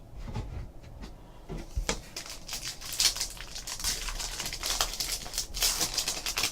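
Rustling and crinkling of a trading card pack's wrapper and cards being handled, with irregular small clicks and slides. It is sparse at first and gets busier about two seconds in.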